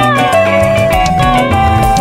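Instrumental music: a melody of long held notes over a bass line and a quick, steady percussion beat.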